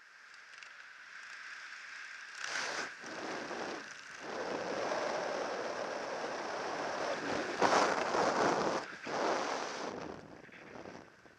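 Wind rushing over a helmet camera's microphone under an open parachute canopy. It swells and dips in gusts, loudest past the middle, and fades near the end.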